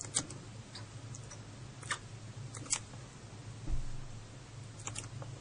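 A few short, sharp clicks, about four or five spread irregularly across the few seconds, over a steady low hum in a small room.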